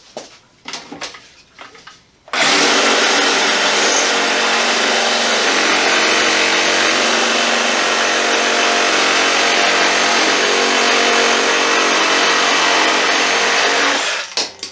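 Craftsman 20V brushless cordless reciprocating saw with a pruning blade, cutting through a thick log under load. A few light handling clicks come first, then the saw starts suddenly about two seconds in, runs steadily for about twelve seconds, and stops near the end.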